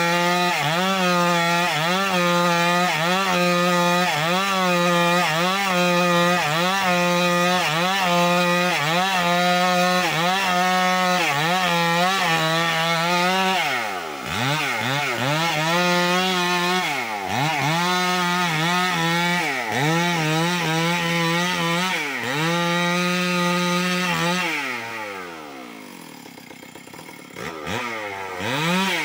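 Two-stroke chainsaw ripping lengthwise through a suren log under load, its engine note dipping in a steady rhythm a little more than once a second as the bar is worked through the cut. From about halfway the throttle is eased off and opened again several times. Near the end the saw drops to idle for a few seconds, then revs back up.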